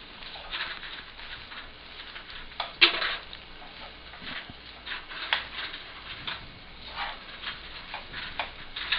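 A spatula scraping and stirring through noodles and potatoes in a frying pan, in short irregular strokes, the loudest about three seconds in.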